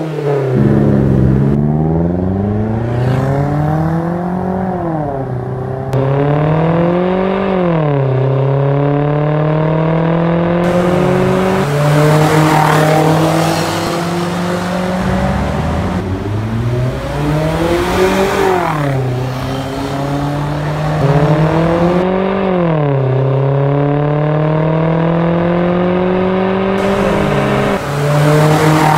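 A 2018 Toyota Avanza's engine through an aftermarket catback exhaust with dual exits, revving and accelerating: the exhaust note climbs in pitch and drops back several times.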